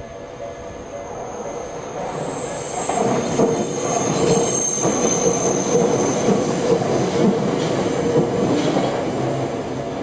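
Tokyu electric commuter train running past, growing louder over the first few seconds, with a high wheel squeal on the rails. The level-crossing warning bell keeps ringing underneath.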